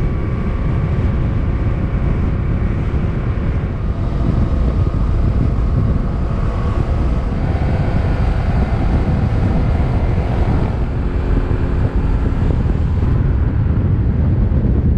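Yamaha motorcycle riding at road speed: the engine runs steadily under heavy wind noise on the bike-mounted camera's microphone.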